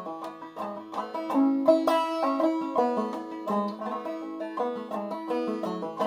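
Long-neck banjo played clawhammer style in double A tuning: a brisk stream of plucked melody notes over a steady ringing drone note.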